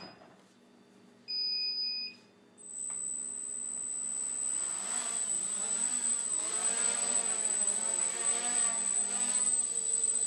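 A short electronic beep about one and a half seconds in, then the micro quadcopter's Turnigy 1811 2900kv brushless motors and 5030 propellers start up: a steady high whine with a growing propeller buzz whose pitch wavers as the throttle changes during takeoff and low hover.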